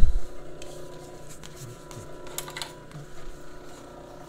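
Electric motor of a Merrow industrial overlock machine humming steadily while the machine is not stitching. There are a few faint clicks and rustles of fabric being handled.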